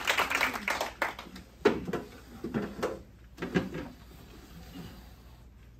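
Audience applause dying away, then a few short scrapes and knocks of wooden chairs being moved and set down on a wooden stage floor.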